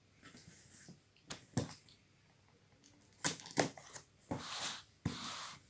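Yellow box cutter slicing the packing tape on a cardboard shipping box: scattered sharp clicks and knocks as the box is handled, then two longer scraping rasps of the blade through tape and cardboard near the end.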